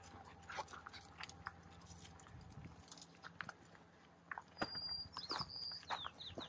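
Faint, irregular crunching and clicking of footsteps on a dirt and gravel hiking trail. About two-thirds of the way through, a high whistle is held briefly, then a quick run of falling chirps.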